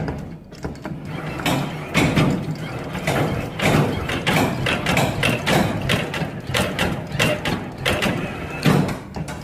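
Claw machine working: an irregular run of knocks and clatter from its mechanism over a steady low hum.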